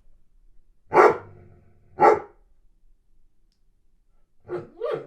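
Weimaraner barking twice, about a second apart, then starting to whine near the end: a dog pining while boarded away from its owners.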